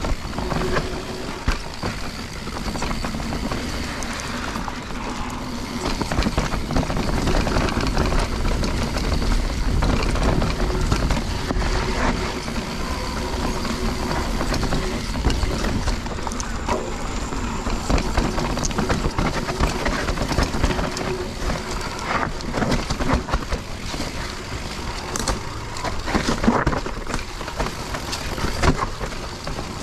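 Mountain bike being ridden down a dirt trail: a steady rushing rumble with frequent rattles and knocks as the bike goes over bumps.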